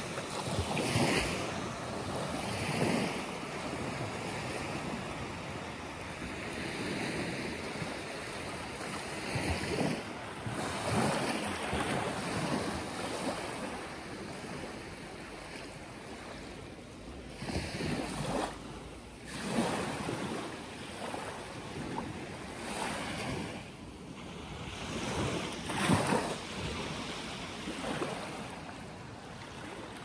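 Small sea waves breaking and washing up a sandy beach, the hiss of surf swelling and ebbing every few seconds.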